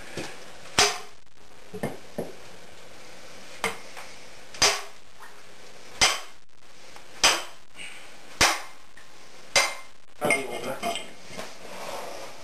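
Hammer blows ringing on a metal splitting tool driven into a cedar log, a sharp clank about every second or so, with a few lighter knocks near the end, as the log is split.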